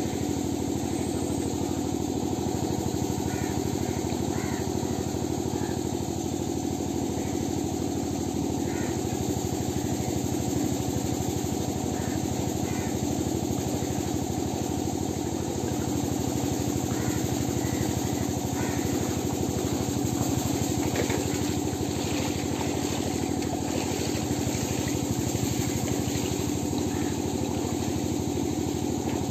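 A small engine running steadily at constant speed, a continuous drone with a rapid even pulse.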